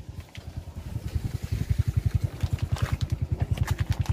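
A small motorcycle engine running close by, an even low putter of about a dozen beats a second that grows louder over the first second and a half and then holds steady.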